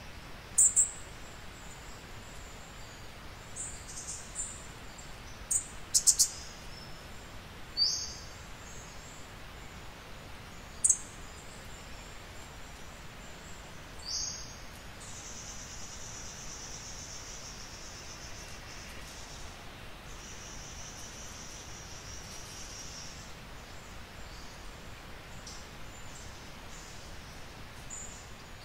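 Forest birds calling with sharp, high chirps and quick falling whistles, scattered through the first fifteen seconds, followed by a high, steady trill lasting several seconds, over a constant faint hiss.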